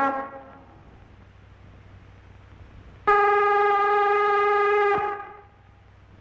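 Cartoon music cue on brass: a falling phrase dies away at the start, then after a pause one long steady horn note of about two seconds, which cuts off sharply.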